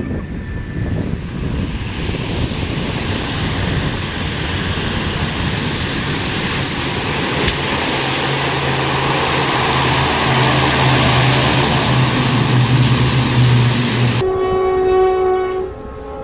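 A four-engine turboprop airliner's engines and propellers run through a landing roll, growing louder, with a high turbine whine slowly falling in pitch and a steady low propeller hum. About 14 seconds in, the sound cuts off abruptly to a snowplow train's horn sounding a chord of several notes.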